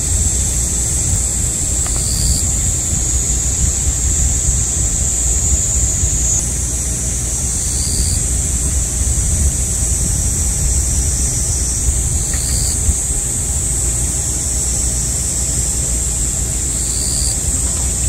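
A loud midsummer chorus of cicadas, a continuous high-pitched drone, with a few short extra buzzes every few seconds. A steady low rumble runs underneath.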